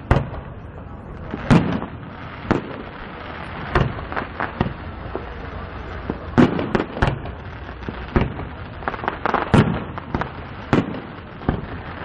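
Fireworks display: aerial shells bursting in an irregular run of about fifteen sharp bangs, some close together, some a second or more apart.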